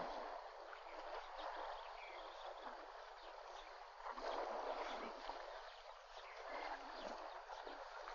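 Water splashing and sloshing as elephants wade and play in a waterhole, rising and falling in uneven surges.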